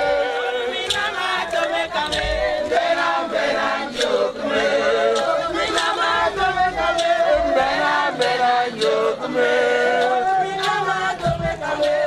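A group of voices singing and chanting together without instruments, in traditional Ejagham funeral song. Sharp strikes cut through the singing roughly once a second.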